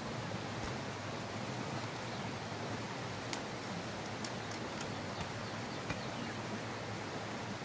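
A steady hiss of background noise, with a few faint, sharp ticks scattered through it.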